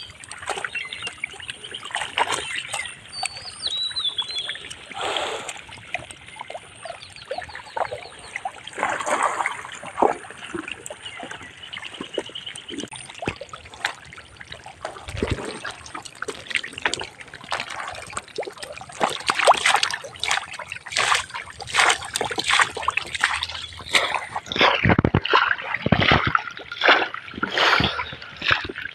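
Splashing and slapping in shallow muddy water as stranded tengra catfish thrash and hands grab at them. The splashes come thicker and faster in the second half.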